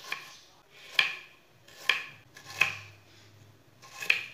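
Small kitchen knife slicing red onion thin on a wooden chopping board: a crisp cut and tap on the board about once a second, five in all.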